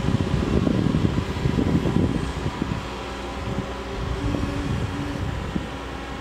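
CAT 309 mini excavator with a disc mulcher attachment running steadily, a droning machine hum heard from a distance, with irregular low rumbling that is strongest over the first three seconds and then eases.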